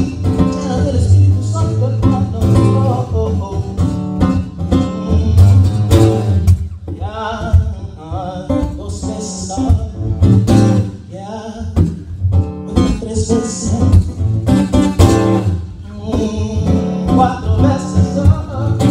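Little Martin small-bodied acoustic guitar played in a funky rhythmic groove, with a voice singing along without clear words.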